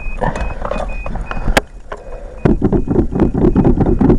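A car's warning chime beeps rapidly. About a second and a half in there is a sharp click, and about a second later the starter begins cranking the 1981 Toyota Celica's engine for a cold start, in an even, rhythmic pulse.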